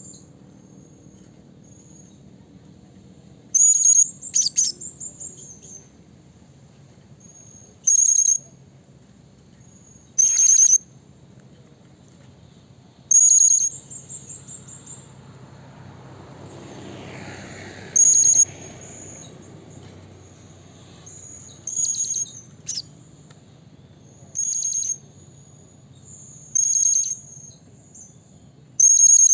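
Blue-crowned hanging parrot (serindit) calling: short, shrill, very high-pitched calls repeated every few seconds, about ten in all, several ending in a quick stuttering trill.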